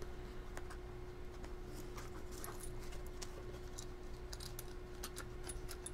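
Faint scattered clicks and light taps of small brass padlocks and keys being handled, over a steady low hum.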